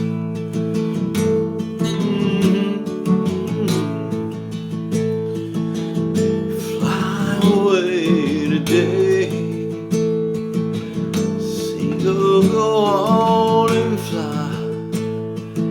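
Acoustic guitar strummed and picked in a steady pattern, with a few sliding pitched notes over it about halfway through and again near the end.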